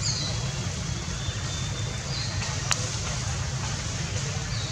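Steady low rumble of outdoor background noise with a constant hiss, a few faint short descending chirps, and a single sharp click about two and a half seconds in.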